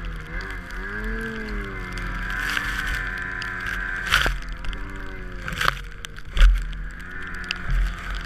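Snowmobile engine revving up and down as the machine ploughs through deep powder, its pitch rising and falling continuously. A few sudden loud knocks come between about four and six and a half seconds in.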